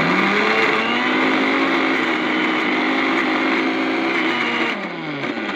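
Electric mixer grinder running, its jar grinding onion and garlic into paste. The motor spins up at the start, runs steadily, then winds down near the end as it is switched off.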